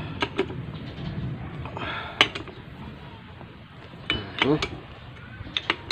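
Sharp metallic clinks and taps of a hand tool on the screws of a Bajaj CT 100 motorcycle engine's aluminium crankcase as the case screws are tightened and checked, scattered irregularly, the loudest about two seconds in and several more close together near the end.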